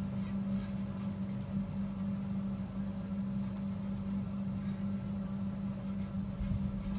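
Steady low background hum with a few faint clicks from metal knitting needles being worked.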